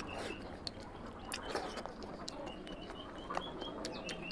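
Wet chewing and lip-smacking clicks of a person eating gulab jamun by hand. A small bird chirps a quick run of short, high, repeated notes in the background through the middle.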